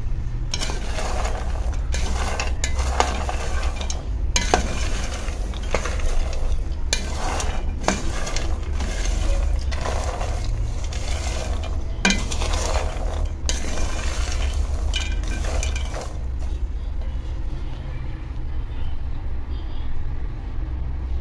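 Raw peanuts being stirred in a dry pan with a wooden spoon: a dense rattling and scraping of the nuts against the pan in repeated strokes, stopping about sixteen seconds in. The peanuts are nearly roasted, their skins starting to come off. A low steady rumble runs underneath.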